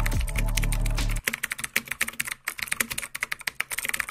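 Rapid computer-keyboard typing clicks, a typing sound effect that goes with on-screen text being typed out. Low background music runs under the clicks and cuts off about a second in.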